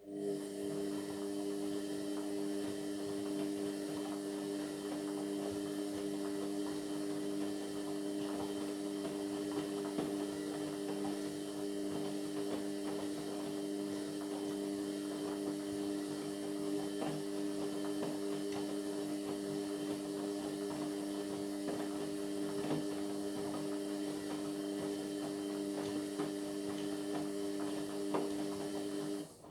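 Indesit MyTime washing machine running partway through a Cotton 60 wash: a steady hum with faint ticks, starting suddenly and cutting off suddenly about half a minute later.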